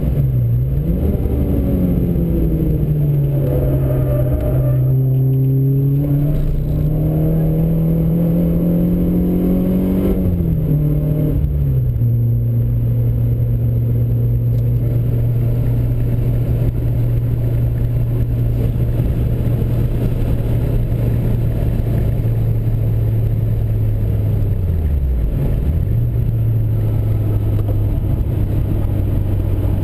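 Renault Clio's engine heard from inside the cabin while driving. The revs drop near the start and climb slowly, then drop again about eleven seconds in, like gear changes. After that the engine holds a steady pitch at cruising speed, with one brief dip and recovery in pitch near the end, over road and wind noise.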